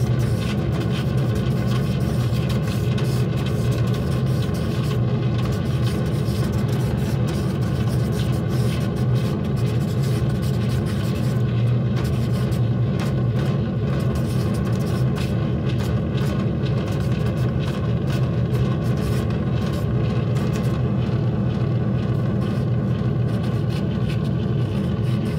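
Amplified sound of painting on a surface: a steady, dense low rumble with faint held tones above it and many small scratchy clicks throughout.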